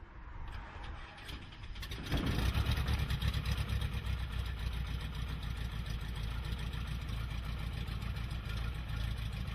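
Small high-wing propeller plane's piston engine running steadily, heard from the cockpit, coming in loud about two seconds in after a quieter stretch of faint noise.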